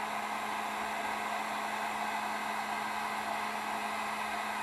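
Electric heat gun running steadily, a continuous rush of blown hot air with a steady hum beneath it from its motor, as it shrinks heat-shrink tubing on a wiring harness.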